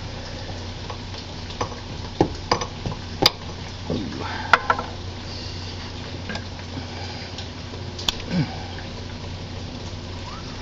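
Hands fitting a new greased rubber crankshaft oil seal onto the bottom of a Kawasaki FH721V engine: scattered clicks and light knocks with a few short squeaks, in clusters during the first five seconds and again about eight seconds in, over a steady low hum.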